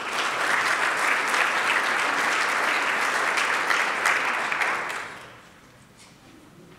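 Audience applauding for about five seconds, dying away near the end.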